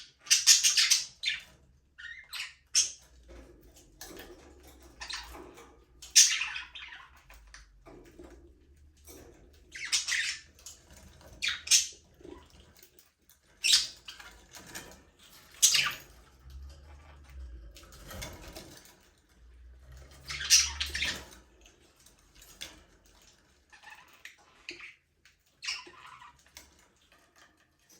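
A flock of budgerigars chirping and squawking in short, scattered bursts, with quieter gaps between them.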